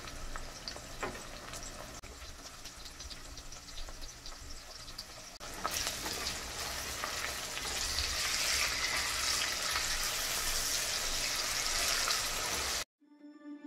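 Sliced onions and green chilies sizzling in hot oil in a stainless steel pot. About halfway through they are stirred with a silicone spatula and the sizzle turns louder and busier, then it cuts off just before the end.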